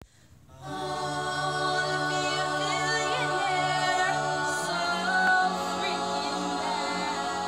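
Mixed-voice a cappella choir singing held chords in harmony, coming in under a second in; the low bass note steps up about halfway through.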